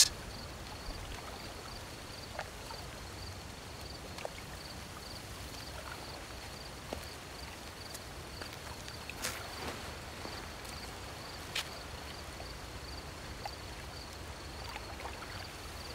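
Night ambience: a cricket chirping in an even, high-pitched pulse, several chirps a second, over a soft steady hiss, with a couple of faint clicks in the second half.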